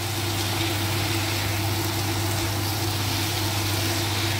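Boiled potato pieces being stirred into hot, sizzling masala in a nonstick kadai with a silicone spatula, a steady hiss over a constant low hum.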